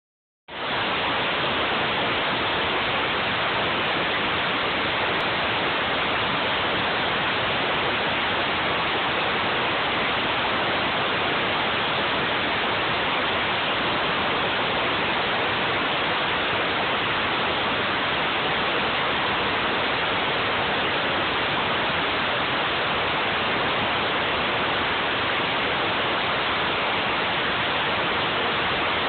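CNC router running while cutting, a steady unbroken rushing noise that starts about half a second in and holds an even level.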